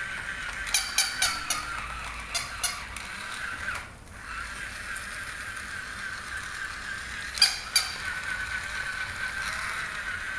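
Battery-powered toy jumping dog yapping with its electronic bark: four quick yaps about a second in, two more a little later, and two near the end. A steady high whine from the toy runs underneath, dropping out briefly in the middle.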